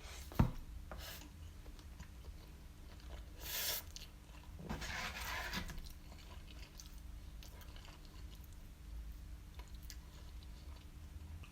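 Close-up eating sounds: a person chewing a mouthful of doner kebab meat, cheese and chips, with a sharp click about half a second in and a couple of longer bursts of wet, hissy chewing noise in the middle.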